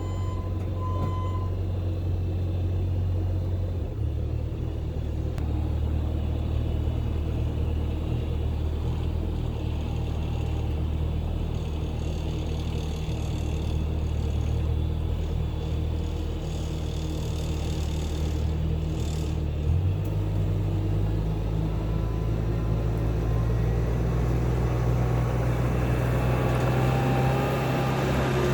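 Bobcat T650 compact track loader's diesel engine running steadily with a low hum while the loader works. Its speed changes about four seconds in and rises about twenty seconds in.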